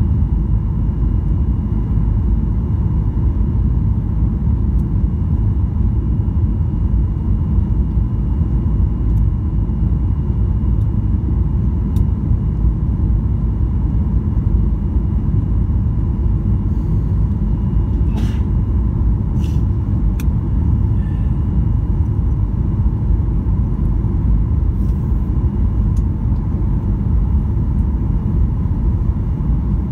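Steady, low cabin rumble inside a Boeing 737-800 on approach with flaps extended: its CFM56 engines and the airflow over the airframe, with a faint steady whine. A few faint clicks come a little past the middle.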